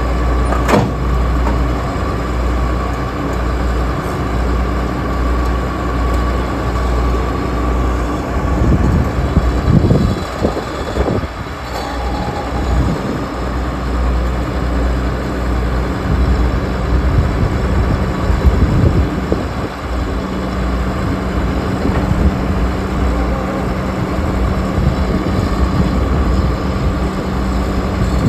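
Heavy diesel engine running steadily with a low throb, revving up and down a few times about ten seconds in.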